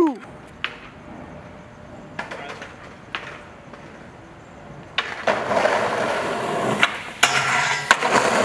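Skateboard wheels rolling on concrete from about five seconds in, getting louder as the board comes closer, with several sharp clacks as it rolls over cracks and joints.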